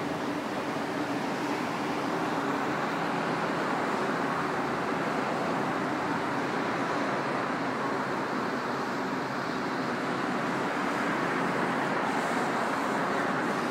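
Pressure washer running: a steady rushing hiss of water spray, with a faint low hum underneath.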